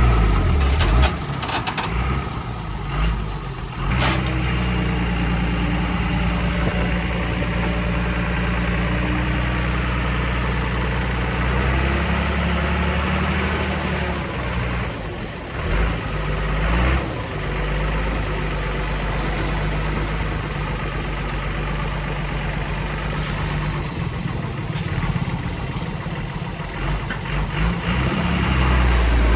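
Heavy diesel engine of construction machinery running under load, its pitch rising and falling several times, with sharp knocks about one and four seconds in.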